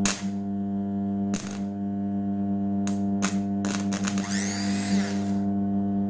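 Rewound microwave oven transformer humming steadily under load, with sharp snaps as the lead is touched to a motorcycle starter motor's terminal, and a brief whine about four seconds in as the starter motor spins up and winds down. The very high current the motor draws nearly shorts the transformer's secondary winding.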